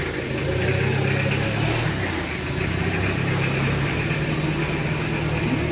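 Steady low hum of an engine running, even throughout.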